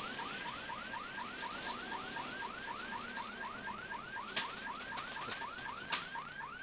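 A car-mounted siren sounding in rapid rising yelps, about five a second, over the steady noise of the car driving. Two sharp knocks come through in the second half.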